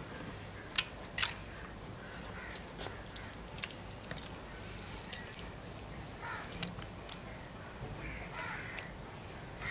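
A metal spoon clinking and scraping in a clay bowl of marinade and over fish on a wire rack, with two sharp clinks about a second in and scattered light clicks after. Birds call in the background.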